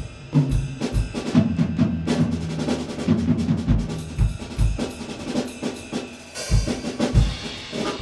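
Background music: a drum kit playing a busy rhythm on bass drum and snare over low sustained bass notes.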